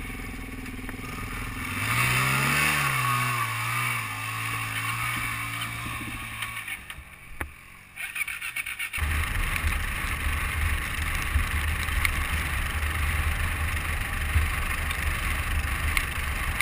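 A motorcycle engine rising then dipping in pitch and running steadily before fading out about seven seconds in. After a short lull, steady wind and road rumble come in abruptly and carry on.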